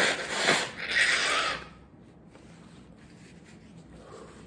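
A man blowing his nose hard into a tissue: loud blasts in the first second and a half, the last one the longest.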